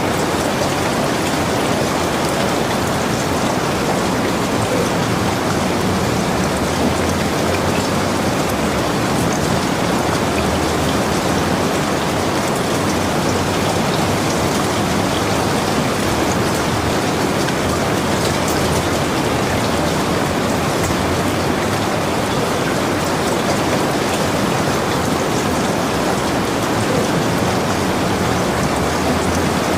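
Steady rain falling, with individual drops ticking now and then over the even hiss.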